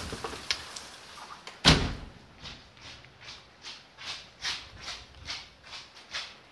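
Hail noise drops away as a door shuts with one solid thud about two seconds in. After that come faint, evenly spaced swishes, about two or three a second.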